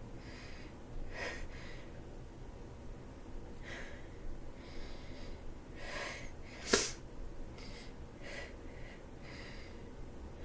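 A person with a head cold taking short breathy in-breaths every second or so, working up to a sneeze, with one sharp sneeze about seven seconds in, the loudest moment.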